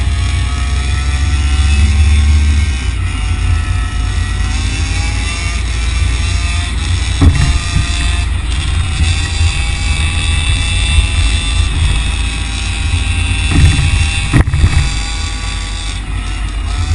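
RC car's motor whining steadily, its pitch rising and falling with speed, over a low rumble of wind and road noise. Sharp knocks come about seven seconds in and twice near the end.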